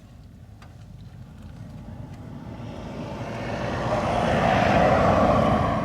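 A road vehicle driving past, its engine and tyre noise growing louder over about four seconds, loudest near the end and then starting to fade.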